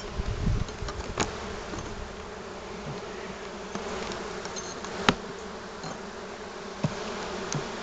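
Honeybees buzzing steadily around an open hive whose frames are being lifted out, with a few sharp clicks, the loudest about five seconds in.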